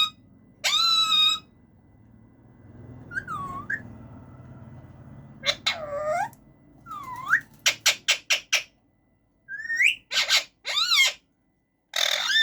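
Male Alexandrine parakeet (raw parrot) whistling and calling: one long whistle about a second in, then gliding chirps, a quick run of about six short notes, and a few loud calls near the end.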